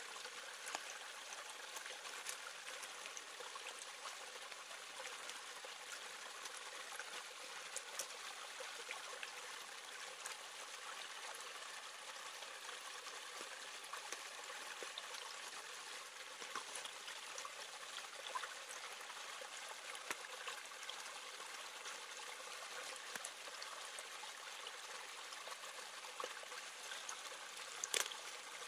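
Shallow stream trickling steadily over rocks, with scattered small clicks and rustles from a leaf parcel being tied up close by, and one sharper click near the end.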